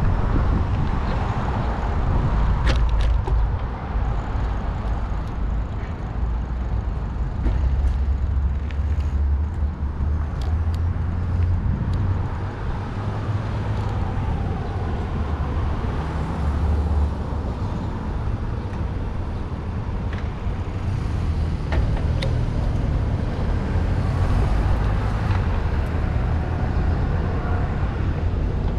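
City road traffic, with cars driving through the intersection and along the street. A low rumble of wind on the microphone of the moving bicycle runs under it.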